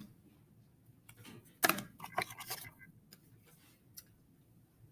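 Cards being handled, soft clicks and rustling: a short cluster about one and a half seconds in, then two single ticks.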